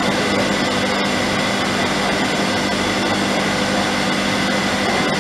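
Steady drone of distillery plant machinery, an even whir with a constant low hum and a faint high whine, unchanging throughout.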